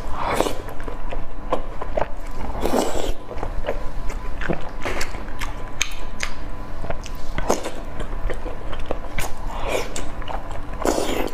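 Close-miked eating sounds: a person chewing and slurping saucy noodles, with wet bites and mouth clicks. Longer slurps come at the start, about three seconds in, and near the end.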